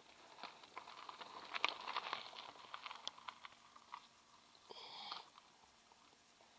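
Mountain bike tyres crunching and ticking over a stony dirt trail as the rider passes close by, loudest about two seconds in and fading after. A brief high-pitched call about five seconds in.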